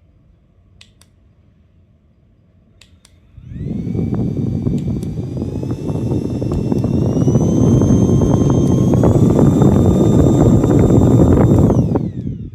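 A few clicks, then a handheld high-speed turbo fan starts up with a loud rush of air and a high motor whine that steps up in pitch several times as it is switched through its speeds. Near the end it is switched off and the whine falls away as it spins down.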